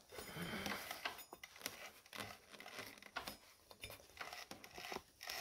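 Faint handling noise: irregular light clicks and rustles as a hand touches the scooter's variator fan plate and moves the phone close to it.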